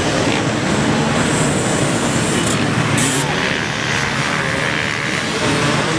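Dirt bike engines running steadily, with a wavering engine note.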